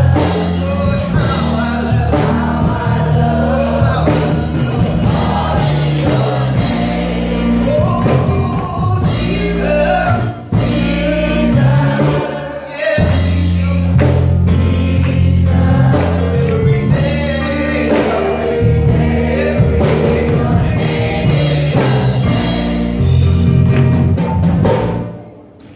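Gospel choir singing with keyboard accompaniment over a steady bass line and drums. The music dips briefly twice near the middle and dies away just before the end.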